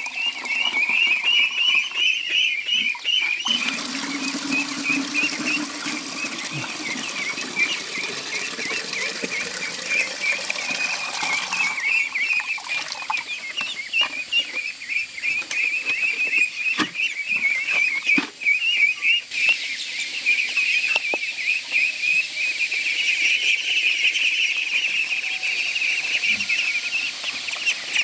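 A crowd of baby poultry (ducklings and chicks) peeping continuously in many overlapping high chirps. A steady rushing noise joins them from about three seconds in until about twelve seconds, and there are a few soft knocks.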